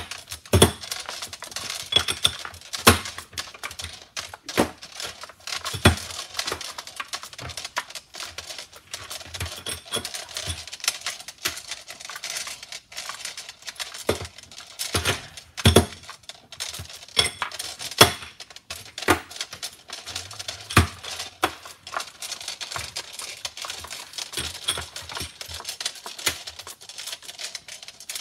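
Loaded brass pistol cartridges clinking and rattling as they are swept by hand over a perforated metal packing plate and drop into its holes. There are dense, irregular clicks throughout, with a few louder knocks.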